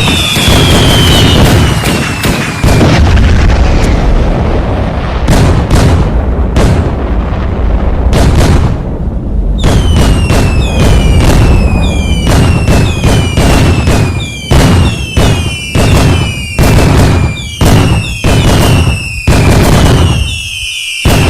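New Year fireworks going off in a steady barrage of bangs. In the second half the bangs come about two a second, many followed by a short falling whistle.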